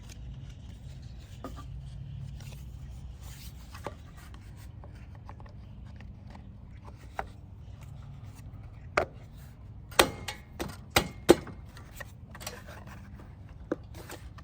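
Hands working on a push mower's small engine just after a new air filter has gone in: faint rubbing and scraping with scattered ticks, then a quick run of sharp knocks and clicks about ten to eleven seconds in, like a plastic cover or tools being handled and set down.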